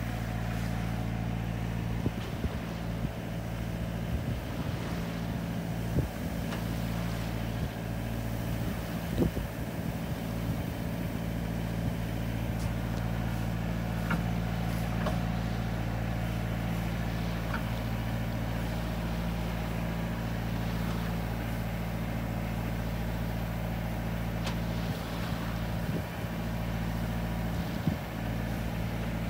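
Small boat's motor running steadily, a constant low drone, with a few brief knocks against the hull or gear.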